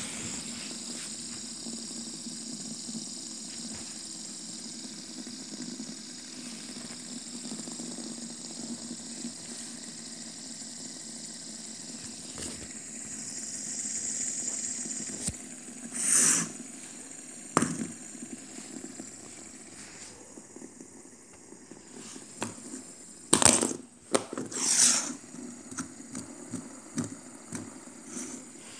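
White plastic three-lobed fidget spinner spinning freely on its bearing, lying flat on a wooden table: a steady whirring hum with a high hiss that slowly thins out. A few brief loud noises break in about halfway through and twice more near the end.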